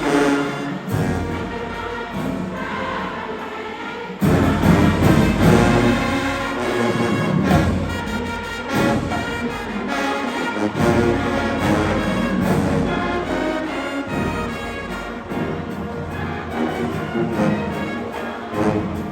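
High school marching band playing, brass with drums; about four seconds in the full band comes in louder with heavy low brass and bass drum.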